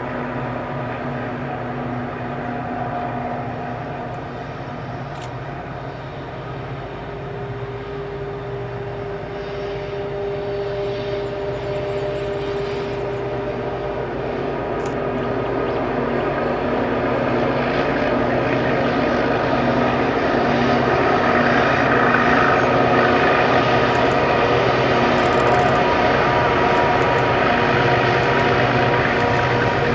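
EMD and ALCO diesel-electric locomotives of a loaded grain train working hard up a grade, a steady engine drone with several held tones. It grows louder over the second half as the train draws nearer.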